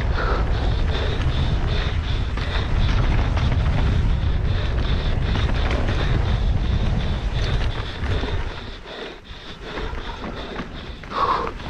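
Wind buffeting the microphone and the rattle and clatter of a mountain bike descending fast over rough ground, easing off about eight seconds in as the bike slows. A short, louder higher sound comes near the end.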